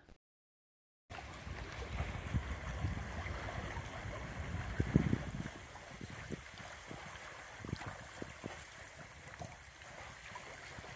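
Rushing water-and-wind noise with a rumble and a few low thumps, starting about a second in after dead silence.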